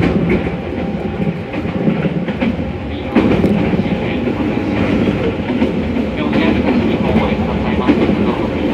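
Running noise of a passenger train heard from inside the carriage: a steady rumble of wheels on rails with clickety-clack over the rail joints. It gets louder about three seconds in.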